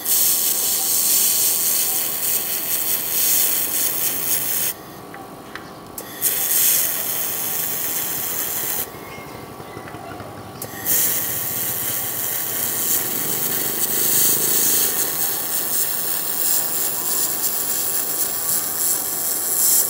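1 kW handheld laser welder running a seam by hand: a loud hissing sizzle in three runs, about 5 s, 3 s and 9 s long, broken by two short pauses, over a steady faint hum.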